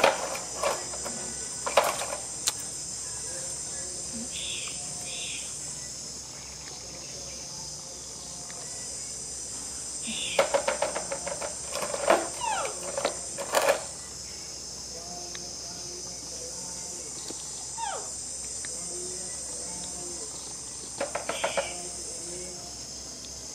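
Steady high-pitched chorus of insects. Bursts of short clicks and a few quick falling chirps come near the start, in the middle and near the end, and these are the loudest sounds.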